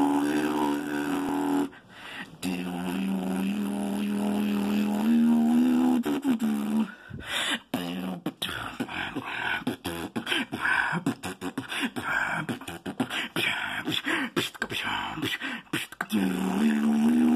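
Solo freestyle beatboxing. A steady closed-lip hummed tone with a short break at first, then, about halfway through, a fast run of percussive mouth sounds, and the hum returns near the end.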